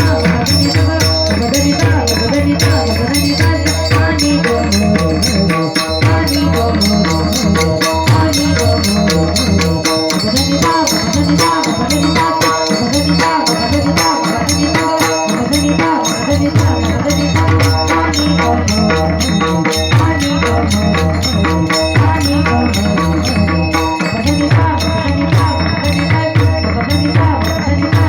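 Music led by fast hand-drum playing on a mridang, with quick cymbal-like jingles and a steady held drone underneath.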